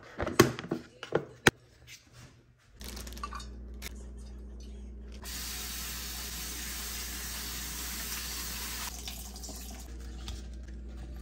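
A few sharp knocks, then a kitchen tap runs water into a sink for about four seconds before it is turned off, over a steady low hum.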